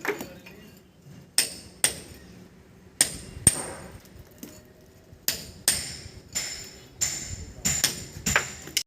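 Hammer striking metal: about a dozen sharp, ringing blows at irregular intervals, some in quick pairs.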